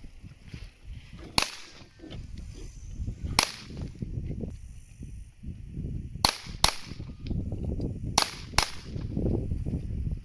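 Six .22 LR pistol shots from a CZ P-07, sharp and short: two single shots about two seconds apart, then two quick pairs near the end, each pair under half a second apart, over a low background rumble.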